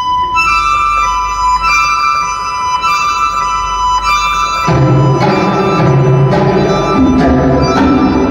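Recorded music played loud through a large sound-system PA during a sound check. It opens with held high notes, then about four and a half seconds in the full track comes in with heavy bass and a drum beat.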